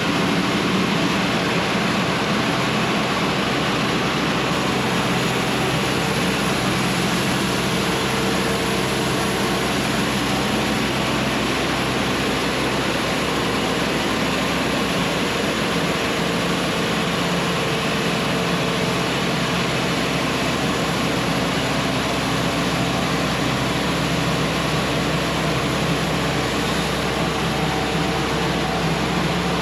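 Cook's AC-36 diesel band sawmill running with its blade cutting a board along a log: a steady, unbroken engine and saw drone.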